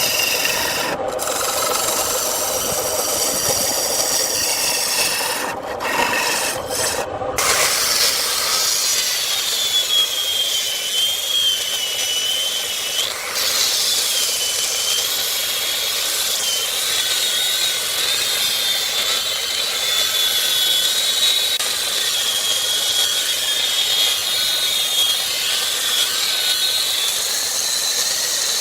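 Turning tool cutting wood spinning on a wood lathe: a steady scraping, rasping noise, cut by a few brief gaps in the first seven seconds, with a high, slightly wavering whine riding over it from about eight seconds in.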